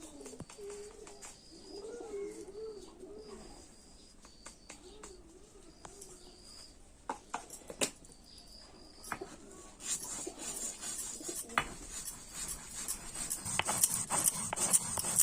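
Doves cooing in wavering low phrases, with a short high call repeating over them. From about ten seconds in, a run of sharp clicks and crackling rustle grows louder.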